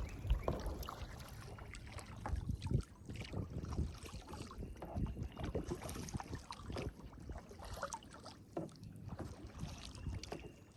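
Kayak being paddled on a lake: quiet, irregular paddle strokes and water splashes.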